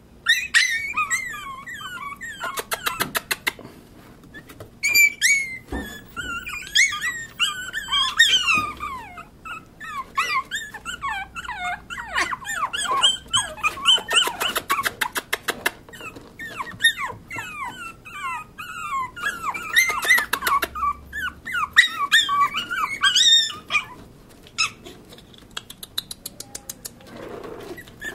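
Several Pomeranian puppies whimpering and whining in short, high, falling cries, often overlapping, with bursts of rapid clicking in between.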